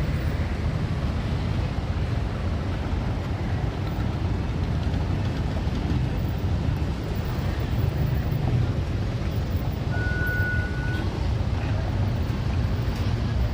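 Steady low rumble of a tour bus's engine and road noise, even throughout. About ten seconds in there is a single brief high steady tone lasting about a second.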